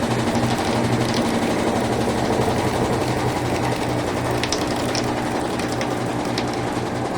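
Brastemp Ative 11 kg washing machine spinning its drum to spin out the wash water before the rinse. It makes a steady mechanical hum with a few faint clicks.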